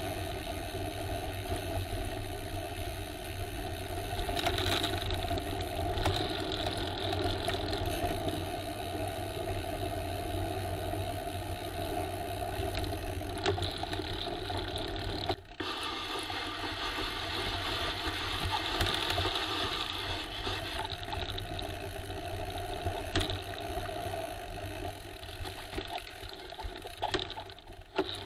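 Riding noise from a camera on a moving bicycle: steady wind rumble on the microphone with rattling of the bike over the path. It breaks off briefly about fifteen seconds in, then carries on.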